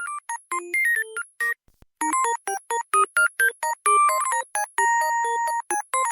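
Mobile phone ringtone, a polyphonic MIDI melody from the LG SV400 Cyon's built-in 72-voice Qualcomm CMX sound chip, playing quick short electronic notes. The melody breaks off about a second and a half in, and after a brief silence a melody of quick notes starts again, with one chord held for about a second near the end.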